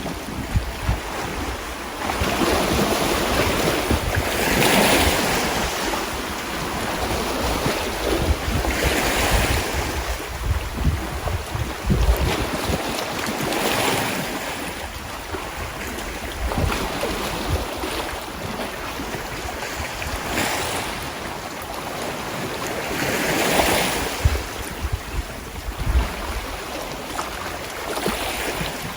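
Sea waves washing in, swelling and falling back every four to six seconds, with wind buffeting the microphone underneath.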